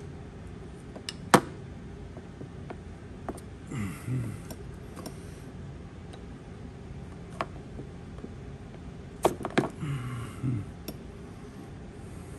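Small metallic clicks and taps from handling a Ford Model A generator's brush wires and terminals by hand. There is one sharp click about a second and a half in, scattered lighter ticks, and a quick run of clicks near the end. Two short low noises come about four seconds in and again near the end.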